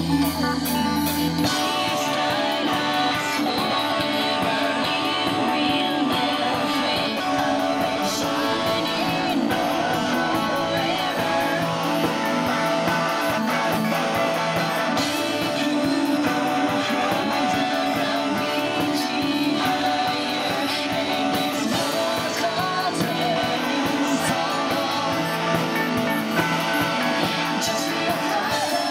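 Live band playing guitar-led rock music, the guitars strummed and picked. A deep low drone cuts out about a second and a half in, and the rest runs on at a steady level.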